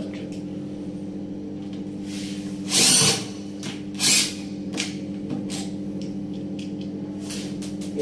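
Cordless drill/driver running in two short bursts, about three seconds in and just after four seconds, as it drives a screw through a door lever's rose into a stripped hole refilled with sawdust and super glue. A few light clicks follow, over a steady low hum.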